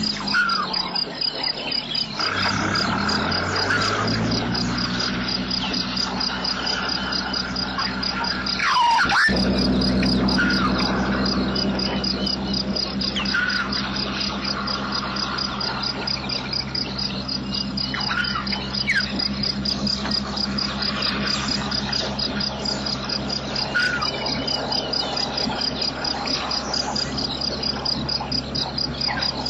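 Steady, evenly pulsing chorus of insects such as crickets or cicadas, with a few short bird calls now and then over a low steady hum.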